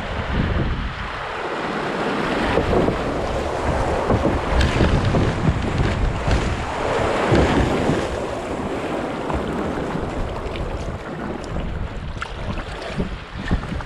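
Rushing, splashing water of a shallow creek riffle as a kayak runs through it, mixed with wind buffeting the microphone; loudest in the middle, easing as the kayak reaches calmer water near the end.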